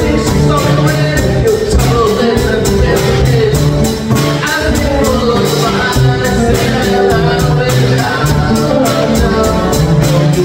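Live acoustic trio playing a song: two strummed acoustic guitars and a drum kit with hi-hat strokes about four a second, under a man's lead vocal.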